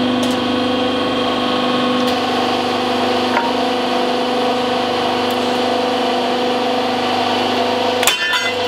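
500-ton hydraulic press running with a steady hum from its pump as the ram bears down on a steel plate over an aluminium Suzuki V-Strom 1000 engine case. About eight seconds in the hum stops abruptly and sharp cracks follow as the case breaks apart under the load.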